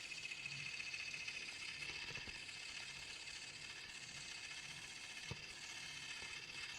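A small motorised tool whirring steadily and high, with a couple of faint clicks about two and five seconds in.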